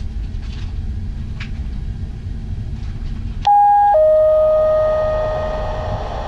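Steady low rumble of the ferry's engines. About three and a half seconds in, a two-note descending ding-dong chime sounds over the ship's public-address system, the lower second note ringing away over a couple of seconds: the attention signal before a passenger announcement.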